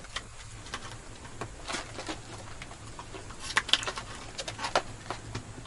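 A small dog's claws clicking and scrabbling on the hard floor as it jumps up on its hind legs, in scattered light taps over a low steady hum.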